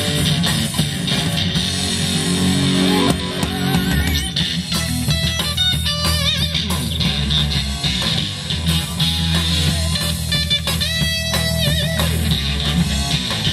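Live rock band playing without vocals: electric guitar, bass guitar and drum kit. A lead line of held notes wavers with vibrato twice, in the middle of the passage and again near the end.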